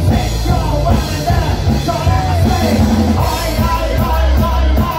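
Live punk rock band playing, with a sung, shouted lead vocal over the full band.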